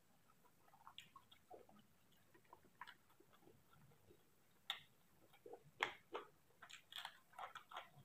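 Faint sounds of a person eating rice by hand: soft chewing and mouth clicks, with fingers working the rice on the plate. The clicks and smacks are scattered at first and come thicker and louder from about halfway through.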